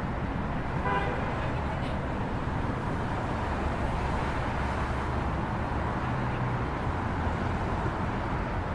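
Busy city intersection traffic: a steady rumble of car engines and tyres, with a short car horn toot about a second in.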